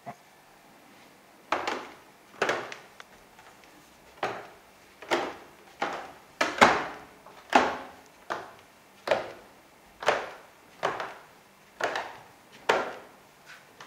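Footsteps on a new wooden staircase, each tread creaking under the weight: about fifteen steps at a little under one a second, beginning about a second and a half in.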